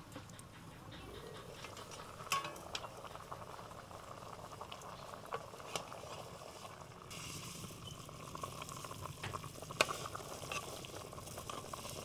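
Beef tongue broth bubbling at a boil in a metal pot over a wood fire, while a metal ladle stirs it and clinks sharply against the pot a few times. The loudest clink comes near the end.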